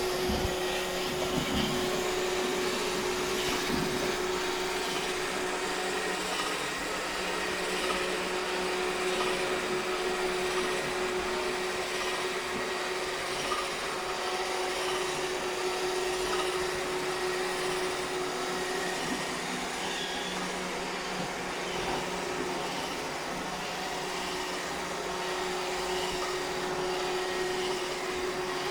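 iRobot Roomba 630 robot vacuum running steadily, its motor and brushes making a constant whir with a steady hum.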